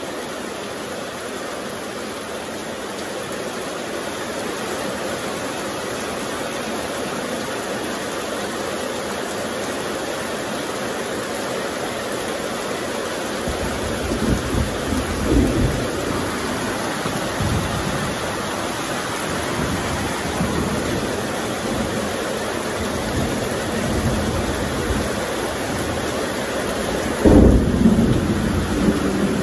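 Steady, even hiss of heavy rain. Low rumbles come through about halfway in and again near the end.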